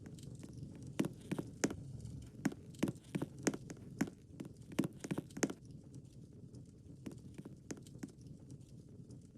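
An irregular run of sharp clicks and taps, about a dozen of them, from about a second in until about five and a half seconds in, over a steady low rumble.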